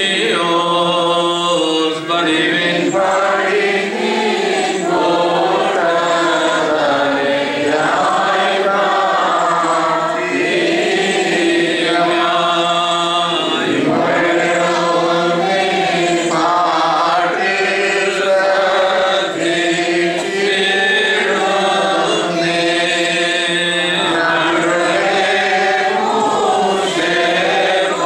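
Voices singing a slow Malankara Orthodox liturgical chant without a break, over a steady low held note.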